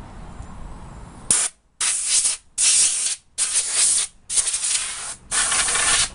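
Compressed-air blow gun on a coiled air hose blowing sanding dust off a steel go-kart frame: six hissing blasts of about half a second to a second each, starting about a second in.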